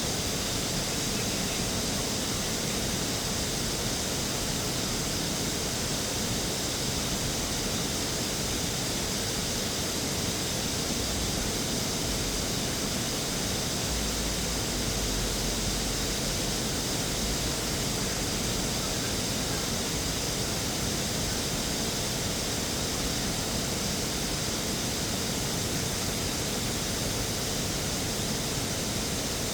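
Steady, even rushing hiss with no pitch or rhythm, brightest in the upper range, and a brief low rumble about halfway through.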